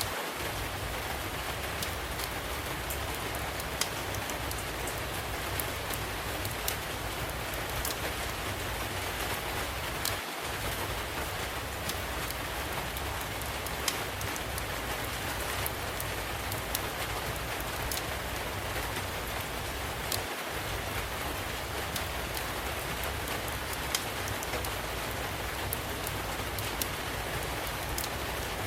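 Steady rain falling, mixed with a wood fire crackling, with scattered sharp pops every second or two.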